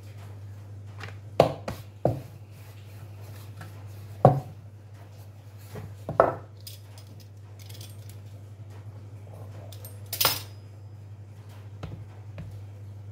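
Wooden rolling pin knocking and clattering on a wooden pastry board while dough is rolled out: a few irregular sharp knocks over a steady low hum.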